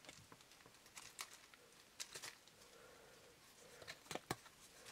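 Faint patter and rustle of damp substrate and leaf litter tipped from a plastic cup into a plastic tub, with a few light ticks and taps, the loudest few about four seconds in.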